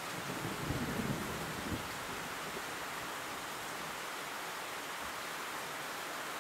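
Steady hiss of heavy rain, with a low thunder rumble in the first two seconds that dies away.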